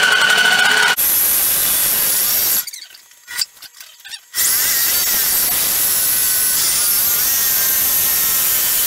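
Electric jigsaw running and cutting through a wooden board. It stops about two and a half seconds in and starts again about a second and a half later. The cut is hard going because the blade has hit a knot in the wood.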